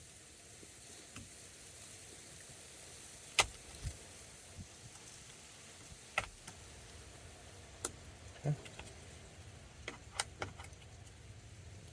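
Irregular sharp clicks and knocks, about ten of them, as a small plastic cover on the steering column is pried off its lock tabs; the loudest comes about three and a half seconds in.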